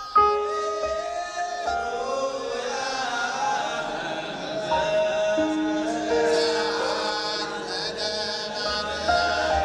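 Music with chant-like choral singing: several voices on long held notes that move to new pitches every second or so.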